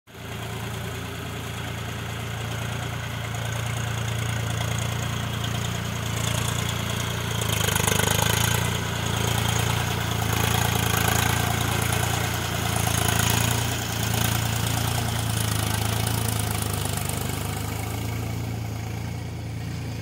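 Swaraj 735 FE tractor's three-cylinder diesel engine running steadily under load while ploughing a flooded paddy field. It grows louder as the tractor passes close, about a third of the way in, and fades near the end as it moves away.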